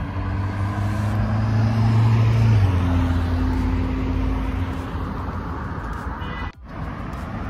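A motor vehicle's engine passing close by on the road: a steady low hum with traffic noise that swells to its loudest about two and a half seconds in, then drops slightly in pitch and eases off. The sound cuts out for a moment near the end.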